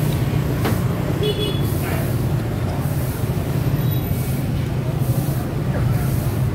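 Steady low rumble of market background noise, with distant voices and a few small clatters on top.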